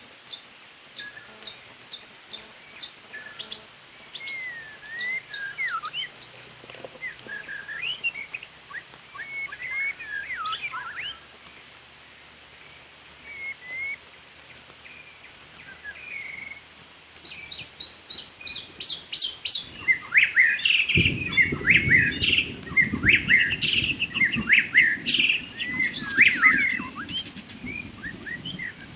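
White-rumped shama singing: varied whistled phrases of rising and falling notes, turning louder and busier about two-thirds in with fast runs of repeated notes. A low rushing noise starts under the song near the end, and a faint steady high whine runs throughout.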